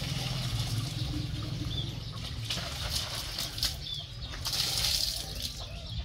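Water splashing and pouring in two short bursts as a plastic jug is dipped and emptied over a basin. A few short bird chirps come through as well.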